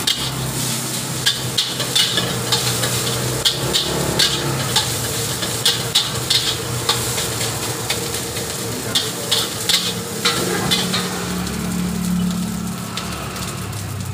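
Fried rice stir-frying in a steel wok: a metal spatula scrapes and clanks against the wok in quick, irregular strokes over a steady sizzle. The clanking thins out and stops a few seconds before the end, leaving the sizzle.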